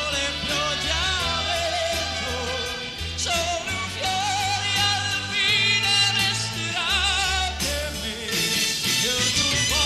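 A male voice singing an Italian pop song with a wide vibrato over band backing with a changing bass line.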